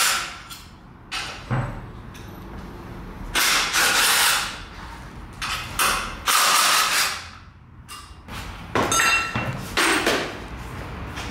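Hand ratchet wrench clicking in short runs, about eight times, with pauses between, as it turns the bolts that hold a new motorcycle to its shipping crate.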